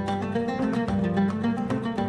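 Background music: a quick run of plucked-string notes.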